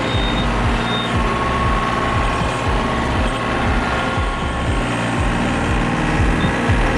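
Yanmar tractor's diesel engine running steadily under load, with a few short high-pitched beeps in the first second.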